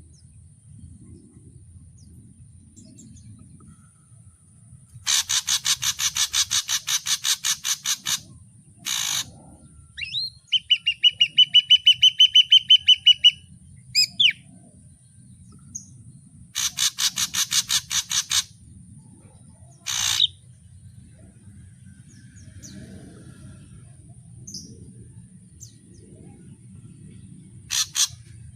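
Ashy drongo singing a varied medley: fast rattling series of notes, a run of clear, evenly repeated whistled notes, and single sharp calls in between.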